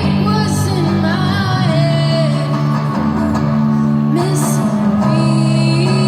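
Live song: a singer's voice over strummed guitar chords.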